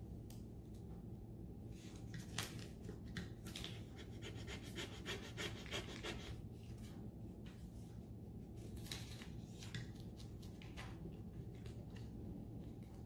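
Faint, scratchy rubbing in short, irregular strokes: a hand tool burnishing a rub-on transfer's backing sheet to press the decal onto a painted MDF frame.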